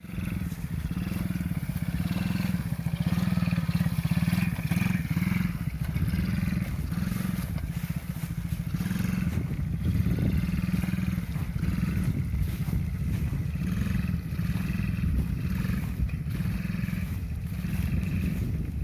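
Small 50cc engine of a children's ATV running continuously, its note dipping and swelling slightly as it is ridden.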